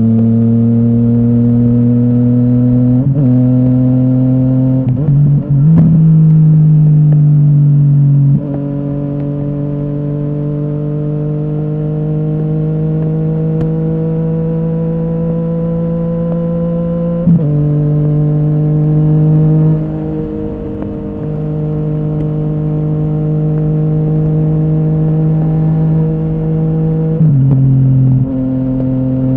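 Yamaha MT-09's inline three-cylinder engine through a full Akrapovic exhaust, under way. The engine note climbs slowly and steadily, with several sudden pitch steps from gear changes.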